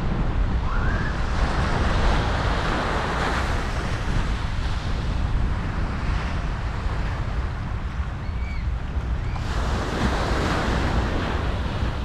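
Ocean surf breaking and washing up the shore, swelling about a second in and again near the end, with wind buffeting the microphone as a low rumble underneath.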